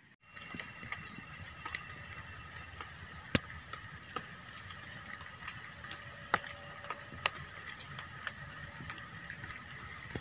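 Small twig-and-leaf campfire crackling, with scattered sharp pops, the loudest about three and six seconds in, over a steady chorus of insects and a short run of high chirps just after five seconds.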